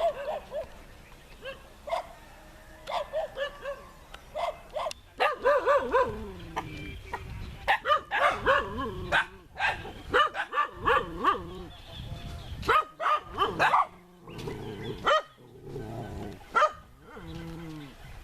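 A dog barking and yelping repeatedly in short bursts, some of the calls sliding down in pitch like whines.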